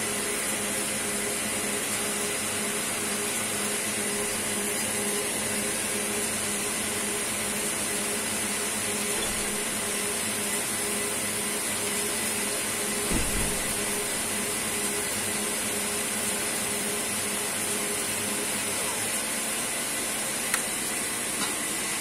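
Stepper motor driving a multichannel DG peristaltic pump head, running steadily: a constant hum with a faint high whine. A dull bump about 13 seconds in and two light clicks near the end.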